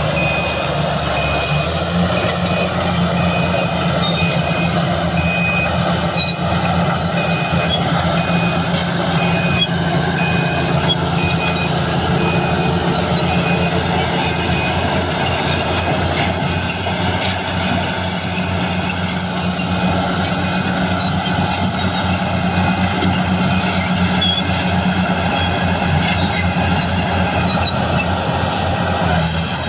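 BEML BD355 crawler bulldozer's diesel engine running steadily under load. A reversing alarm beeps at an even pace through about the first half, then stops.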